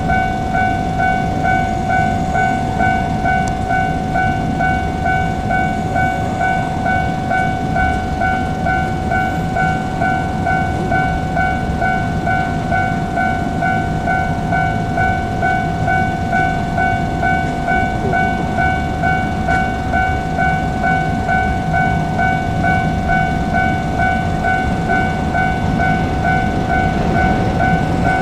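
Japanese railway level crossing warning bell ringing continuously, a rapid, evenly repeating electronic ding, over the low rumble of a JR Kyushu 817 series electric train.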